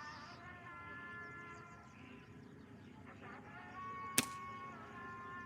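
Background music of long held, layered tones, with one sharp crack about four seconds in.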